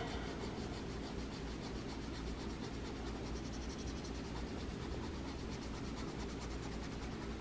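Colored pencil rubbing and scratching on paper in steady shading strokes. A low steady hum runs underneath.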